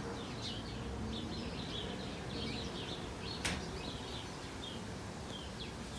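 Small birds chirping in short, repeated calls over a steady low background rumble, with one sharp click about three and a half seconds in.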